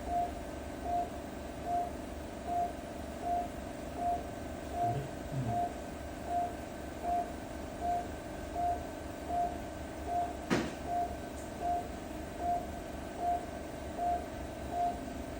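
Operating-room patient monitor beeping steadily, a short mid-pitched beep roughly every 0.8 seconds (about 75 a minute, the pulse beep tracking the patient's heartbeat), over a constant machine hum. A single sharp click about ten seconds in.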